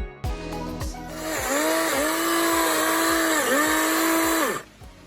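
Chainsaw run at high speed for about three and a half seconds to cut branches, its pitch dipping briefly twice as it bites, then cutting off suddenly. Background music with a steady beat plays throughout.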